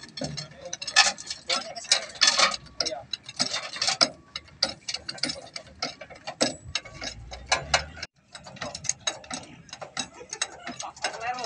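Irregular metallic clicks and clanks of hand tools and metal parts being worked at a lowboy trailer's wheels, with a short lull about eight seconds in.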